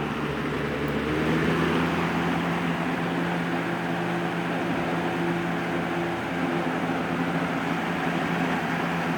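Lakewood 223 box fan switched to high speed: the motor picks up speed over the first second or two, its hum rising in pitch and loudness. It then runs steadily on high with a motor hum and the rush of air from the blades.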